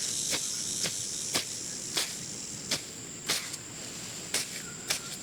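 Insects buzzing in a steady high-pitched drone, with a series of sharp, irregular knocks about once or twice a second.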